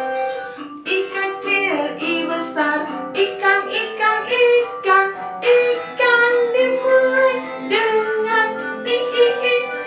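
A woman singing a children's song over instrumental backing music.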